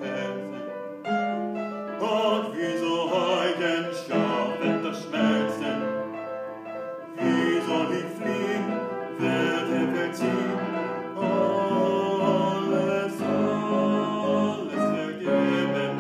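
A male classical singer with upright piano accompaniment, sung in an operatic style with held notes over piano chords.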